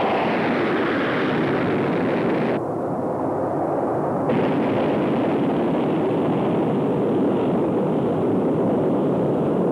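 Pratt & Whitney J57 turbojets of a Boeing KC-135A running at takeoff power, a loud steady jet roar as the aircraft takes off and climbs away. A bit after two and a half seconds in the sound turns muffled for nearly two seconds, then the full roar returns.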